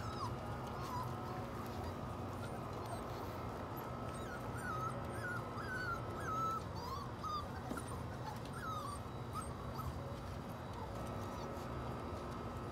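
A litter of six-week-old puppies whimpering and squeaking: many short, wavering high-pitched cries, thinning out after the first two thirds, over a steady low hum.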